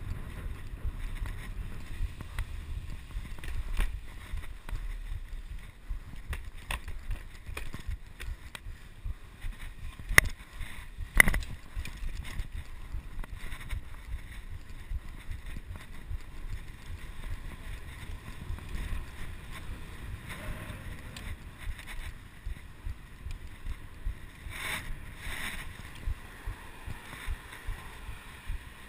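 Wind buffeting a chest-mounted action camera's microphone over the low rumble and rattle of a bicycle riding on paved streets. Two sharp knocks about a second apart stand out near the middle.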